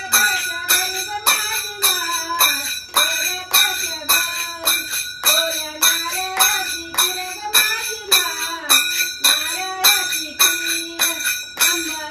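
A woman singing a jagar, a Marathi devotional song to the goddess, over ringing metal percussion struck in a steady beat of about three strokes a second.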